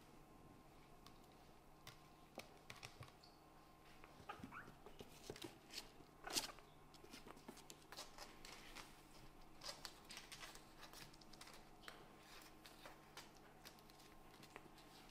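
A kitten's paws and claws scrabbling on a wooden floor and door: faint scattered taps and scratches, with one louder knock about six seconds in.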